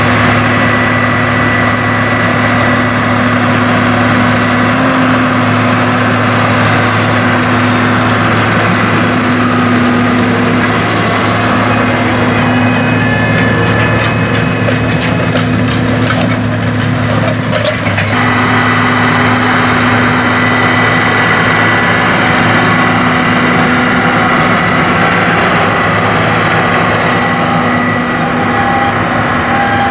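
Cat Challenger 55 tracked tractor's Caterpillar 3126 diesel engine running steadily under load as it pulls a disk harrow through soil. A stretch of rapid clicking and rattling comes midway.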